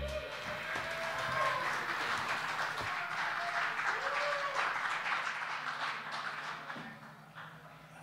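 A small audience applauding and clapping, with a voice or two calling out, after an electric guitar piece ends. The applause dies away near the end.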